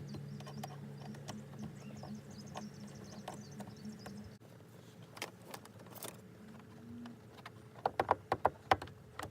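Hands fitting car interior trim, making scattered sharp clicks and knocks, with a quick run of them near the end. Under them, a steady low hum stops about four seconds in.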